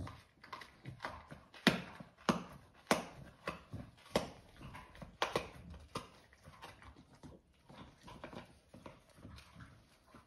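Staffordshire bull terrier gnawing a large dried chew treat: irregular sharp crunches and cracks, loudest in the first half.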